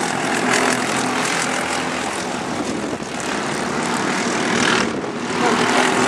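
Go-kart engines on the track, a steady buzzing drone as the karts lap the circuit.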